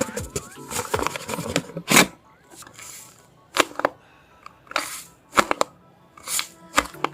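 Paper packaging handled by hand, in irregular crinkling rustles and sharp clicks with short pauses between them. Soft background music runs underneath.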